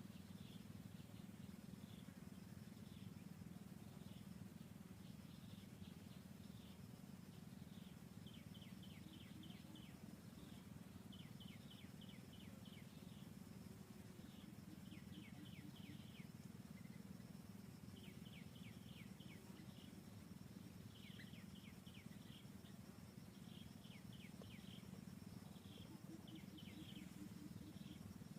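Faint animal chirping: runs of five to eight quick, high chirps, repeating every couple of seconds, over a low steady hum and a thin steady high tone.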